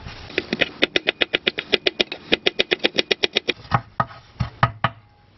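Kitchen knife chopping fresh parsley on a wooden cutting board: a fast, even run of about eight chops a second, then a few slower, spaced chops near the end.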